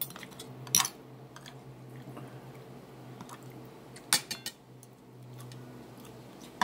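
Metal spoon and fork clinking and scraping on a ceramic plate while food is cut and scooped. There is a sharp clink at the start, another about three-quarters of a second in, and a quick cluster of three or four near four seconds in, over a steady low hum.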